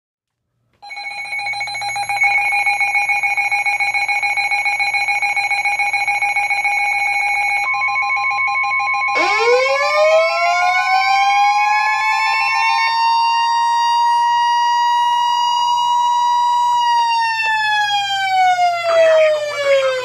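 Several NOAA weather radio receivers alarming at once for an incoming warning: steady electronic alarm tones with a fast flutter, joined about 8 seconds in by a steady warning tone near 1 kHz, and a siren-like wail that rises about 9 seconds in, holds, then falls away near the end.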